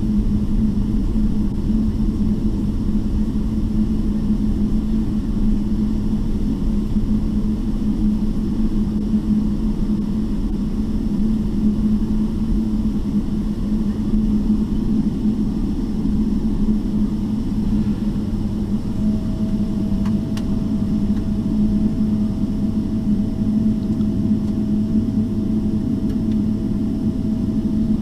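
Steady cabin rumble of a Boeing 777-300ER taxiing, its GE90-115B engines running at taxi power. A faint steady tone joins about two-thirds of the way through, and there is one faint click just after.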